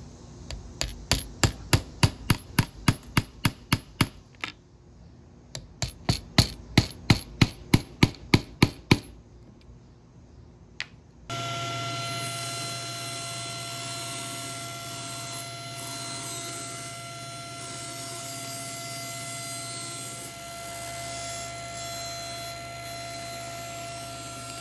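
Light metal-on-metal tapping drives the small nails of a steel sawtooth picture hanger into the back of a mahogany frame through a driver bit held on the nail head, in two quick runs of about four taps a second. About eleven seconds in it gives way to the steady hum of a running table saw.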